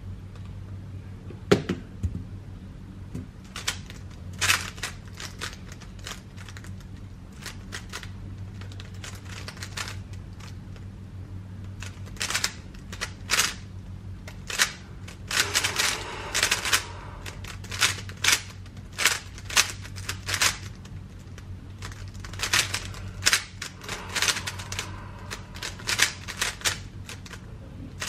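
A GAN 13 MagLev speedcube being turned fast, its layers clacking in quick runs of turns. The runs come in bursts with short pauses between them, over a faint steady low hum.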